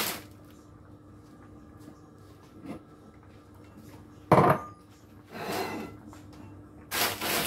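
A single loud metallic clank of a pot or utensil about halfway through, over the faint bubbling of a pot of spaghetti at a boil; near the end a loud burst of hissing, rustling noise begins.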